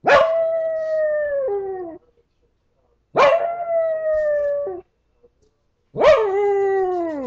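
Small dog howling: three long howls, each starting sharply, holding a steady pitch and sliding down at the end, the last one falling furthest. The dog howls like this when he thinks he is alone.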